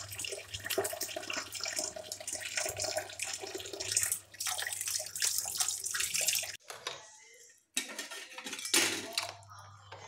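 Tap water running into a plastic tub of soaking brass and silver vessels, with a hand swishing the water. The running water cuts off abruptly about six and a half seconds in, followed by a few brief sloshes.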